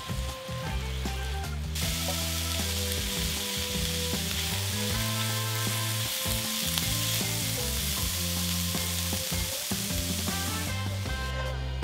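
Sliced mushrooms and onions sizzling in a hot frying pan while a silicone spatula stirs them. The sizzle swells about two seconds in and drops away near the end, with soft background music underneath.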